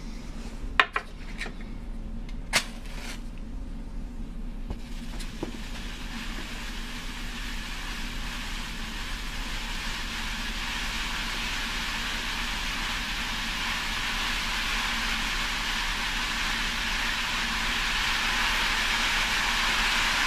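Ammonium dichromate volcano burning: a hissing, crackling sizzle that starts about five seconds in and grows steadily louder as the crystals decompose into ash. Two sharp clicks come before it, about one and two and a half seconds in.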